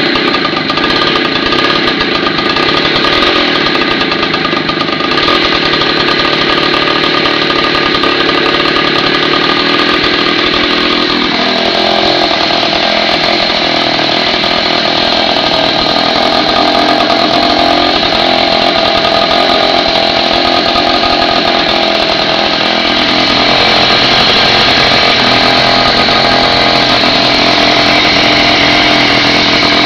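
49cc mini chopper engine with a ported cylinder running steadily just after a cold start, warming up. Its note shifts about eleven seconds in as the engine speed changes.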